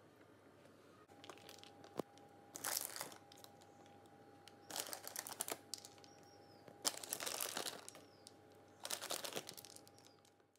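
Plastic packaging crinkling in four short bursts as handfuls of flaked almonds are taken out to scatter over the choux rings. A faint steady tone runs behind it, and there is a single sharp click early on.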